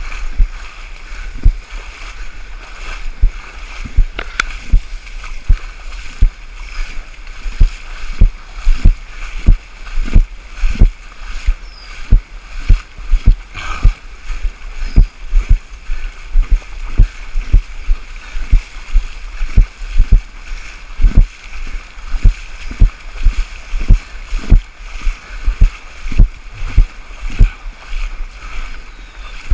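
Footfalls of a runner moving through mud and shallow water, heard through a body-worn action camera as a steady run of thuds, about one and a half to two a second, with wet splashing.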